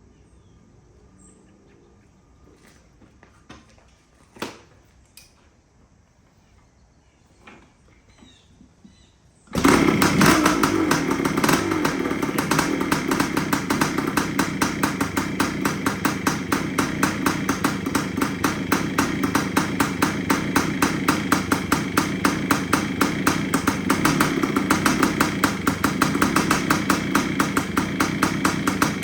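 A freshly rebuilt 1973 Yamaha CT3's 175 cc single-cylinder two-stroke engine starting from cold about nine seconds in, then idling steadily with a fast, even popping beat. Before it starts there are only a few faint clicks and one knock.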